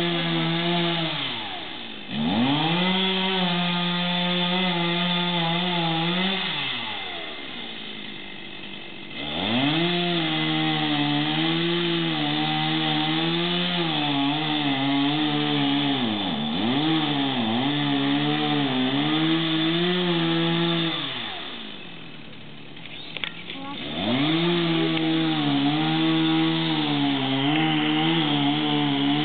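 Two-stroke chainsaw cutting a tree, run at full throttle in three long bursts, dropping back to idle between them. Twice during the middle burst the engine pitch dips briefly as the chain loads up in the cut.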